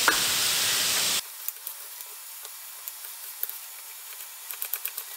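Grated carrots frying in sunflower oil in a pan, a steady sizzling hiss that cuts off abruptly about a second in. After it, faint sharp clicks of a knife slicing peeled zucchini on a wooden cutting board, coming more often near the end.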